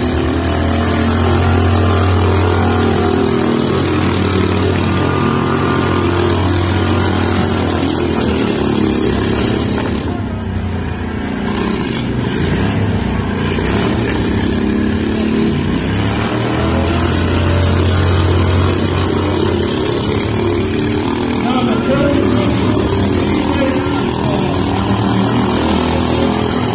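Several small stock garden-tractor engines running and revving, with a steady low drone whose pitch rises and falls now and then.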